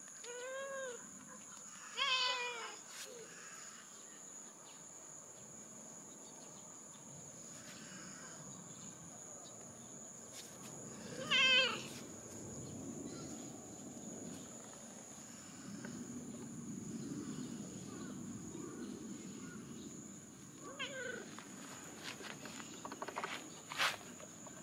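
A stray cat meowing four times with long gaps between the calls. The second and third meows are the loudest.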